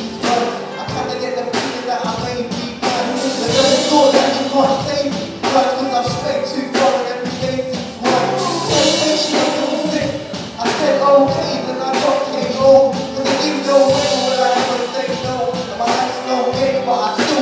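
Gospel music with singing and a steady beat.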